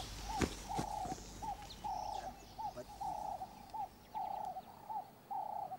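A bird calling over and over in a steady rhythm: a short rising-and-falling note, then a longer held note, the pair repeated about once a second. Faint higher chirps sound now and then behind it.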